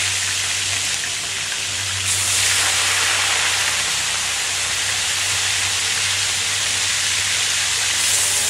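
Small river fish (badar) deep-frying in hot oil in an earthenware wok: a steady, loud sizzle. It gets louder about two seconds in, and again near the end as more fish are dropped into the oil.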